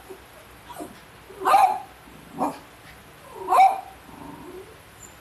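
Small dog barking: four short barks about a second apart, the second and fourth the loudest.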